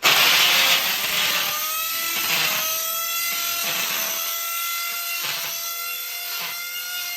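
Electric power tool motor starting abruptly and running with a steady whine that creeps slightly up in pitch, with short dips about once a second as it works.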